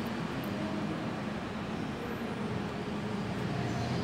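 Steady low background rumble, with no sharp events.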